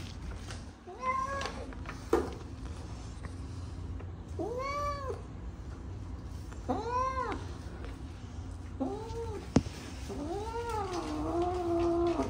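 Wet tabby cat meowing while held during a bath: about five separate meows, each rising and falling in pitch, the last drawn out into a longer wail held on one note near the end.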